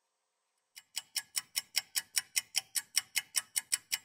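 Stopwatch ticking sound effect, quick even ticks at about five a second, starting just under a second in. It marks a timed three-minute wait.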